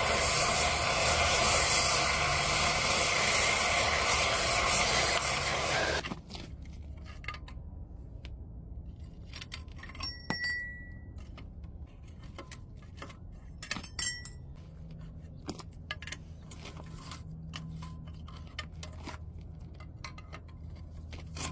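A loud, steady rushing noise that cuts off suddenly about six seconds in. Then light metallic clinks and taps of tools and parts being handled, with one short ringing ping of metal about ten seconds in.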